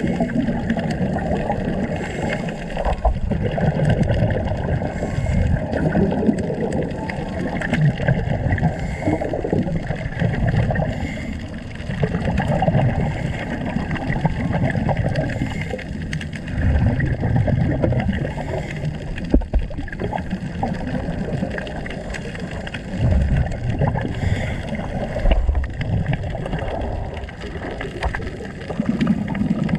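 Scuba diver's breathing heard underwater: the regulator's exhaled bubbles gurgling in surges every few seconds over a low, steady rush of water.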